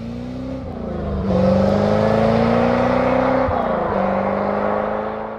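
A 1991 Chevrolet Corvette's V8 under hard acceleration, the engine note climbing in pitch and dropping back several times as it shifts up through the gears.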